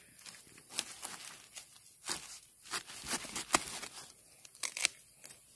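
A long flat knife blade cutting a young bamboo shoot free at its base: a string of sharp, uneven crunching cuts into the fibrous shoot, with dry bamboo leaves crackling around it.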